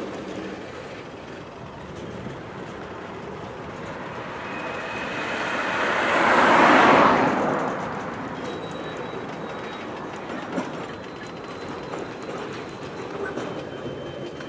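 Freight train of tank cars rolling slowly through a hump yard during classification: steady wheel clatter and rumble over the track. A rushing noise swells to its loudest about seven seconds in, then drops away. A few faint thin squeals sound alongside.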